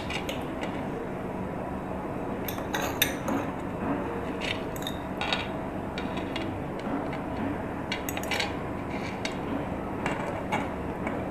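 Metal fork clinking and scraping against a plate and glass tray as chicken pieces are spread onto bread slices: a scatter of light clinks, some in quick clusters, over steady background noise.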